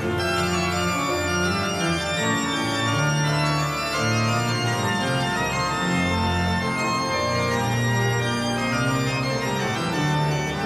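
Pipe organ playing sustained chords with a bass line in the pedals that moves to a new note about every second.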